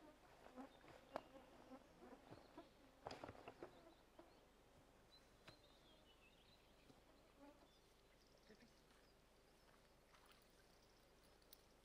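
Near silence: faint outdoor ambience, with a few soft clicks in the first few seconds.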